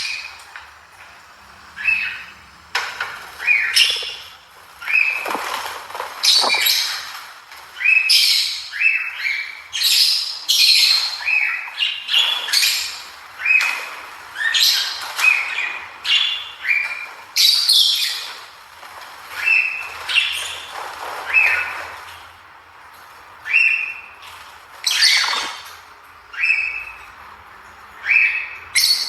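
A cockatiel calling over and over: short, high squawking calls, roughly one or two a second.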